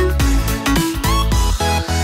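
Electronic background music with a deep bass line and a steady beat.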